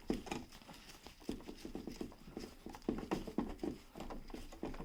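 Hands handling a rocker light switch and its wires, making a run of light, irregular knocks and clicks.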